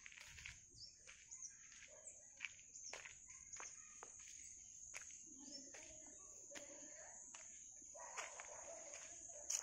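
Faint outdoor ambience: a steady, high-pitched insect drone, with a few short bird chirps and the soft crunch of footsteps on a gravel and grass path.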